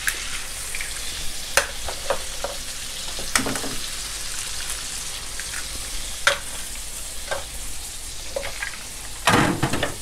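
Shrimp, chicken and shiitake in sauce sizzling steadily in a frying pan over high heat, with two duck eggs cracked in and frying. A few sharp taps are heard, and a louder clatter near the end.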